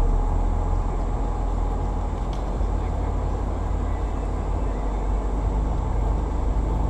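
Stock Jeep Wrangler Unlimited Sahara running on an off-road trail: a steady low rumble of engine and drivetrain.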